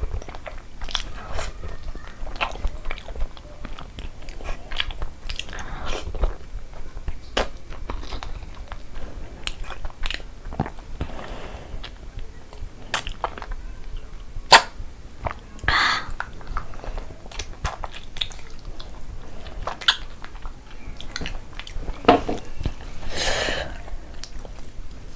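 Close-miked chewing of spicy mutton curry with rice, wet and messy, with many sharp mouth clicks and smacks at an uneven pace; one click about halfway through is louder than the rest. A few breathy sounds come in near the middle and near the end.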